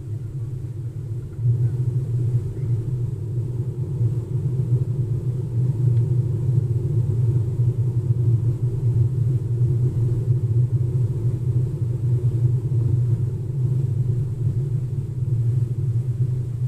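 Steady low road and tyre rumble heard inside the cabin of a Tesla electric car driving along, with no engine sound. It grows louder about a second and a half in.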